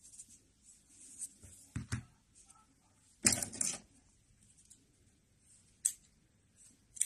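Soft handling noises of yarn and a small crocheted piece: faint rustles and light clicks as the yarn tail is tucked in, with one short, louder knock a little past three seconds in.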